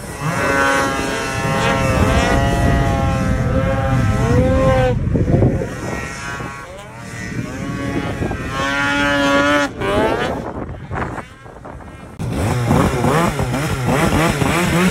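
Snowmobile engine revving hard, its pitch climbing and falling again and again with the throttle as the sled carves through deep powder; it eases off briefly about two-thirds of the way through, then picks up again.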